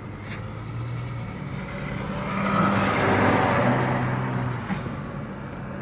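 A road vehicle driving past, its low engine hum and tyre rush swelling to a peak about three seconds in and then fading.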